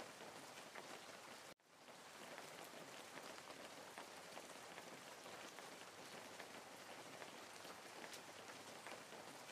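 Faint, steady rain-like patter and hiss. It cuts out abruptly about one and a half seconds in and fades back in.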